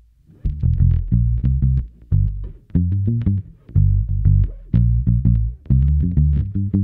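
Electric bass guitar played palm-muted through an EarthQuaker Devices Blumes Low Signal Shredder with a little gain added, giving a slightly gritty, pushed clean tone. It plays a riff of short, choppy notes.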